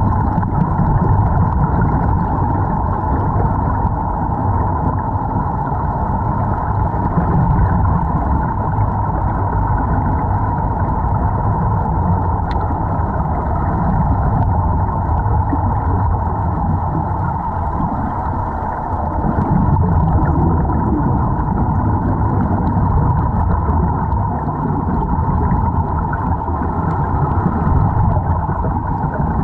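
Steady, muffled underwater rushing of air and bubbles heard through a waterproof camera housing, with a fluctuating low rumble underneath.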